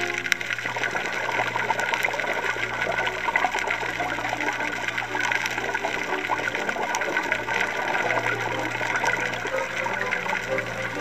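Underwater sound picked up on a dive camera: a steady bubbling, gushing wash with a dense crackle of tiny clicks. Background music fades out about half a second in and returns just before the end.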